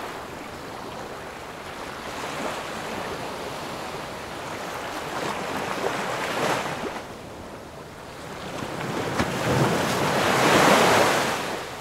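Ocean surf: an even rushing wash that swells twice, briefly around the middle and more fully near the end.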